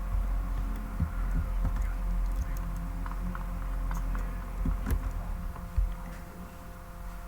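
A steady low drone with a throbbing rumble, a faint steady hum higher up, and a few light clicks and knocks.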